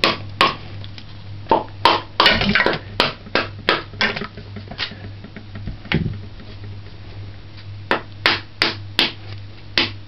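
Hammer blows cracking a coconut's hard shell: a string of sharp, irregular knocks, thick in the first half, with a pause of about two seconds after the middle before a few more.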